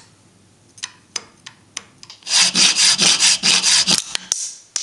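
A few light clicks, then from about halfway in roughly nine quick back-and-forth rasping strokes (about five a second) of a hand tool worked on the cast-aluminium cylinder head plate clamped in a bench vise.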